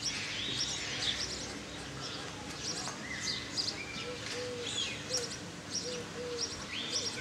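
Birdsong from several birds: short high chirps and whistled notes throughout, with a run of soft low coos from about four to six and a half seconds in.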